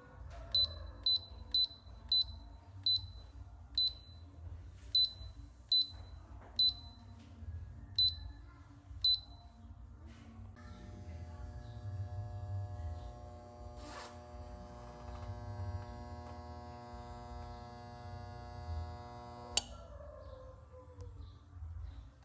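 An Electrolux appliance's control panel beeps about a dozen times as its buttons are pressed. Then its motor runs for about nine seconds with a steady electric hum and whine. This is the motor noise under investigation. The motor stops with a click, and the panel beeps once more at the end.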